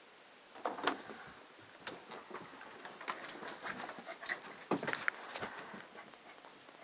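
Dogs shuffling about and settling, with light knocks and rustles and their collar tags jingling from about three seconds in.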